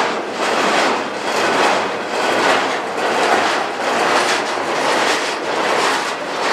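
Cars of an intermodal freight train rolling past close by, a steady rumble of wheels on rail that swells and fades in a regular rhythm, a little more than once a second.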